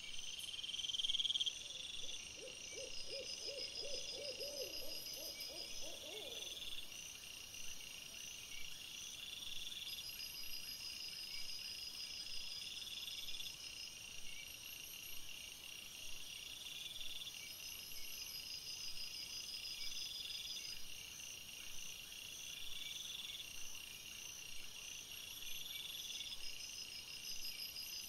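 An owl hooting: one quavering, wavering call about two seconds in, lasting some four seconds. Behind it, a steady chorus of night insects chirps and trills in a regular pattern, about one call every two seconds.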